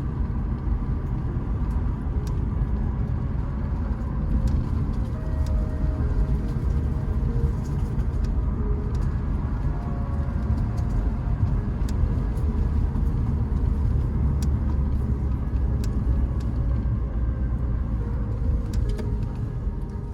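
Car driving, a steady low rumble of engine and road noise with scattered small ticks.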